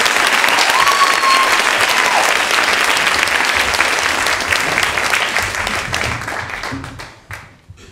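Audience applauding, with a cheer rising over the clapping about a second in; the applause thins to a few last scattered claps and dies away near the end.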